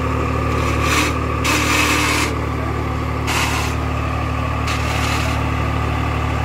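Swaraj 855 tractor's diesel engine running at a steady, held speed while the tractor balances on its rear wheels in a wheelie stunt, with several short bursts of hissing noise over it.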